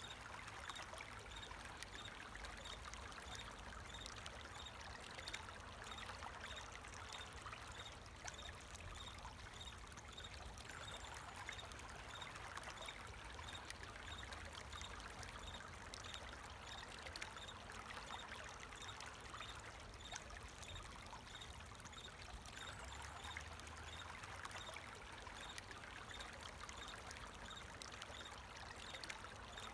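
Water flowing steadily, like a small stream, with crickets chirping in an even, repeating rhythm behind it.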